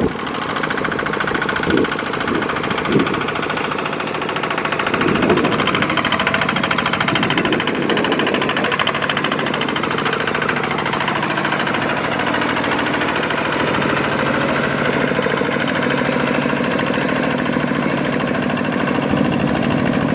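Two-wheel walking tractor's single-cylinder diesel engine chugging steadily under load as it pulls a trailer through mud, with a couple of sharp knocks in the first few seconds.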